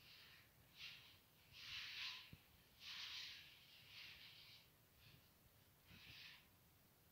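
Faint rubbing strokes of a hand-held pad or float over a plastered wall: about seven short, irregular hissing scrapes.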